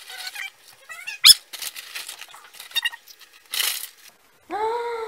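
Sped-up time-lapse audio of potato chips being poured from a crinkly bag into a bowl: a jumble of squeaky chirps and crinkles, with a sharp rising squeal about a second in and a held squeaky tone near the end.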